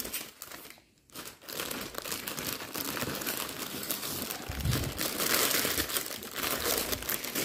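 Clear plastic bag around a cross-stitch kit crinkling as it is handled and pressed flat, with a brief pause about a second in and a dull bump about halfway through.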